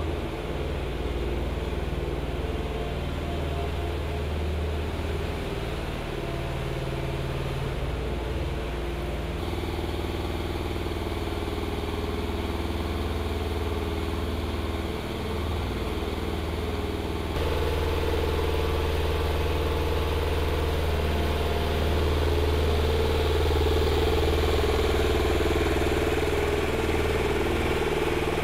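Munitions lift truck's engine running steadily, a low drone that shifts abruptly in tone about ten and about eighteen seconds in.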